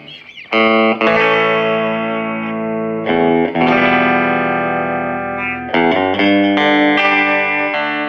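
Stratocaster electric guitar strumming chords through a red-knob Fender Champ 12 tube combo amp. After a brief lull, the first chord comes about half a second in, and further chords are struck every second or so and left to ring.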